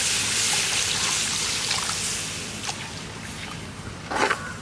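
Water poured into hot chilli masala frying in coconut oil in a clay pot, hissing and sizzling as it hits. The hiss fades away after about three seconds.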